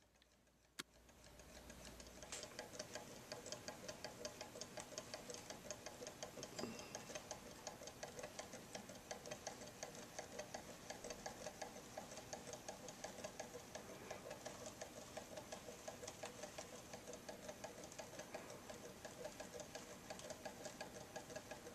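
Small 3D-printed low-temperature Stirling engine running, its mechanism making a fast, even ticking of several clicks a second. The ticking sets in about a second and a half in, after a single click.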